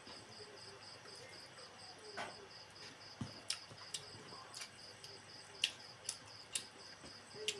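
A cricket chirping steadily in rapid, even pulses. Over it, a handful of sharp, wet mouth clicks in the second half from someone chewing and smacking while eating pork fat.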